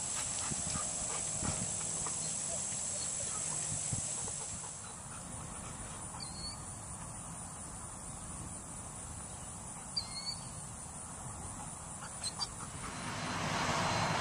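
Outdoor ambience with a steady high insect drone and a few short bird chirps in the quieter second half. Near the end a louder steady hum, like road traffic, takes over.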